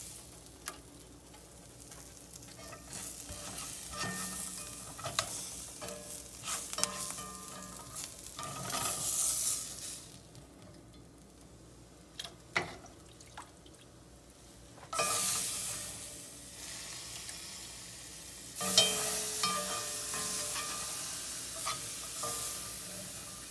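Spatula scraping and stirring cooked onions and garlic around a hot cast-iron Dutch oven, with clicks of the spatula against the iron. Bouts of sizzling come from the bit of bacon grease left in the pan.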